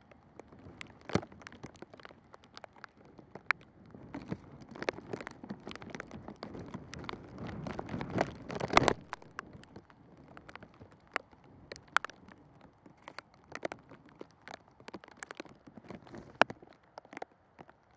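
Footballs being kicked around a training pitch: scattered sharp knocks at irregular intervals, several a second at times, over a low rushing outdoor noise that swells and peaks about nine seconds in.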